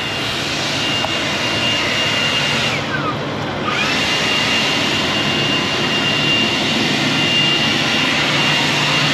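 Leaf blower running at full throttle, a steady rush of air with a high whine. About three seconds in the throttle drops and the whine falls away, then it winds back up a second later. It is being used to blow soybean leaves off a combine header.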